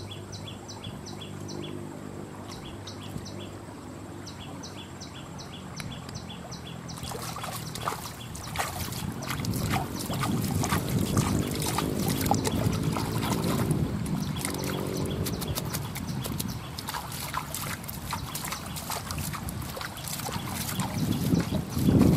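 A hand splashing and churning shallow pond water, starting about seven seconds in and going on in quick, irregular splashes, with a heavier splash near the end. Before the splashing there is only a faint low hum and a rhythmic high chirping.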